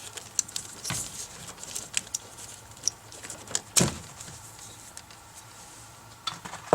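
Scattered sharp clicks and small plastic rattles of a headlight bulb and its wiring plug being handled as the plug's clip is squeezed and pulled free, with the loudest click a little before the middle.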